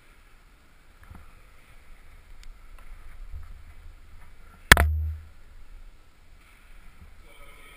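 A climber's body and helmet-mounted GoPro knock against the climbing wall: one sharp, loud knock a little past the middle, with a short low thud after it. Faint rustling and handling noise through the camera case around it.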